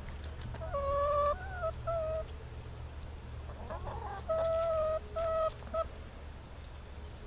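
Hens calling: a long, pitched note followed by a few shorter ones about a second in, and a second group of drawn-out calls around four to six seconds in. A low, steady hum runs underneath.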